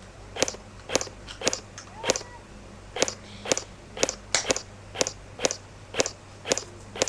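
Footsteps crunching on dry leaves and twigs at a walking pace, about two steps a second.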